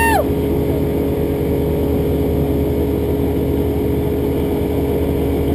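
Dodge Ram's 5.9 engine on a chassis dyno. A pitched whine falls away in the first moment as the revs drop, then the engine settles into a steady idle.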